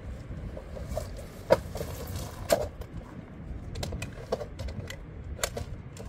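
Telescoping ladder of a rooftop tent being extended: sharp metallic clacks as its sections slide out and lock, two loud ones about a second apart and several lighter clicks after. A low wind rumble runs underneath.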